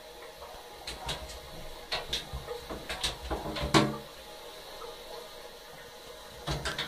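Kitten scrabbling about in an empty bathtub: a run of sharp clicks and taps from its claws and paws on the tub, loudest a little before halfway, with a short cluster again near the end.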